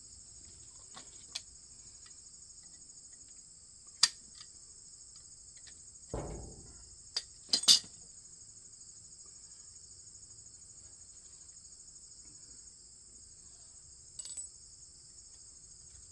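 Steady chorus of crickets, broken by a few sharp metallic clinks about four and seven and a half seconds in and a dull knock just after six seconds, from a roller chain and its links being handled.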